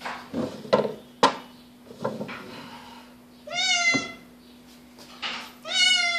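Russian Blue cat meowing twice, about two seconds apart, each meow rising in pitch at its start. Two sharp knocks come within the first second and a half.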